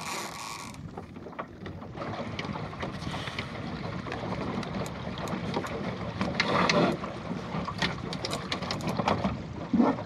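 Water washing and slapping against the hull of a plywood Goat Island skiff under sail, with wind on the microphone and scattered small clicks and knocks from the boat. A louder surge of water comes a little past halfway.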